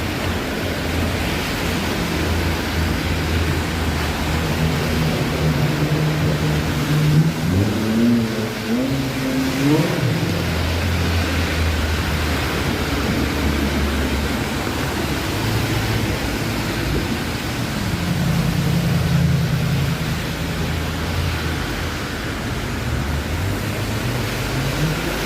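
City street traffic: a steady wash of road noise with low engine hum from passing vehicles. About seven seconds in, a vehicle engine rises in pitch in steps as it accelerates away.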